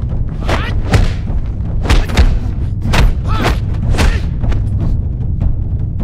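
Film punch sound effects: heavy thuds of fist and boxing-glove blows landing, about one a second, over a low steady musical score, with short shouts between the blows.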